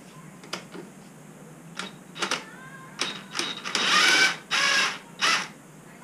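Hand tools and metal parts clicking, knocking and scraping under the hood as the intake pipe ahead of the throttle body is worked loose, with several louder scraping bursts in the second half.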